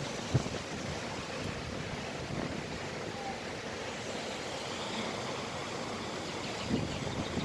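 Steady rushing background noise with no clear pitch, with a short knock less than half a second in.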